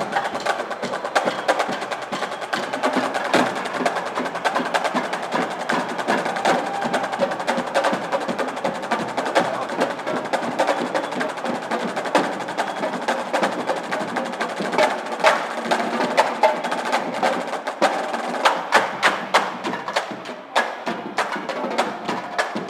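Drumline playing a fast, continuous cadence on marching tenor drums and bass drums, with a string of sharp, loud accents in the last few seconds.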